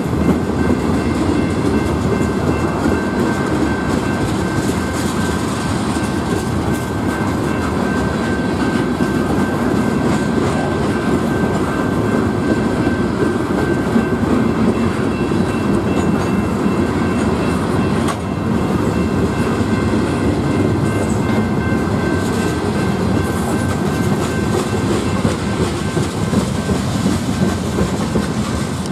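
Norfolk Southern freight train of covered hoppers and tank cars rolling past close by, its wheels clacking steadily over the rail joints, with a faint steady high tone underneath.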